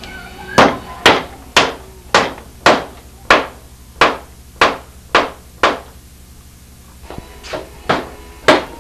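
Claw hammer striking in a steady run of sharp blows, about two a second. The blows stop briefly partway through and resume as lighter taps near the end.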